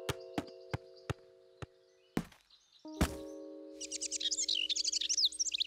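Cartoon sound effects: a run of sharp knocks over held musical chords, then, from a little past halfway, a fast high-pitched chirping twitter like cartoon birds.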